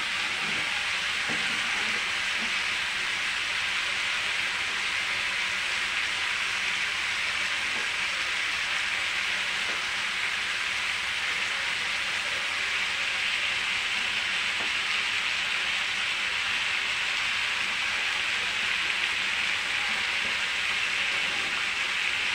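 Vegetable kurma simmering in a kadai on a gas flame, giving a steady sizzling hiss. A steel ladle stirring it makes a few soft scrapes in the first couple of seconds.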